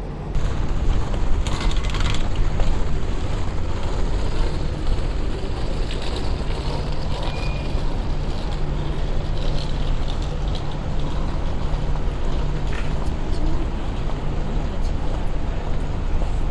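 Steady street traffic noise with a low engine hum from a nearby vehicle. It gets suddenly louder just after the start, with a few faint clicks over it.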